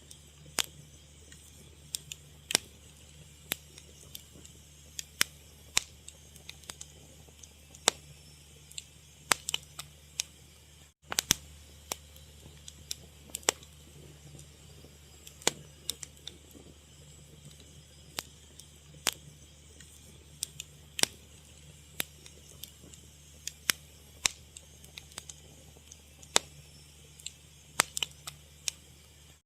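Fire crackling: irregular sharp pops and snaps, a few each second, over a low steady hum, cutting out for a split second about eleven seconds in.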